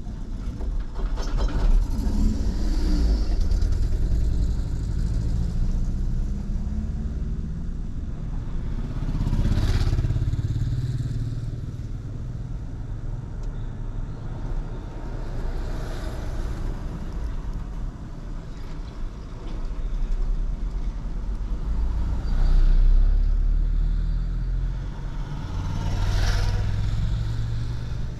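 Carbureted CHT engine and turbinho exhaust of a Volkswagen Gol quadrado heard from inside the car while driving, with steady road noise; the engine swells louder several times, as under throttle.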